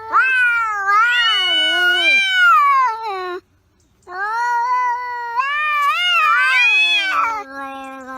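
A cat yowling: two long, wavering drawn-out calls with a brief silence between them, then a lower call that slowly falls in pitch near the end.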